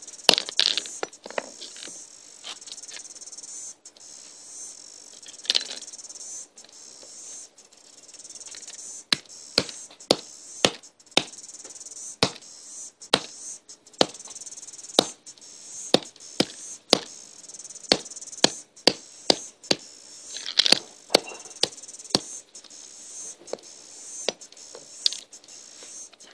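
Repeated sharp cracks and knocks, irregular and at times a couple a second, of an old iPod being smashed, over a steady high buzz of cicadas singing.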